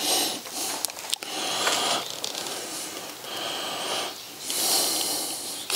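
A person breathing audibly close to the microphone, several breaths about a second apart, with a few light clicks between them.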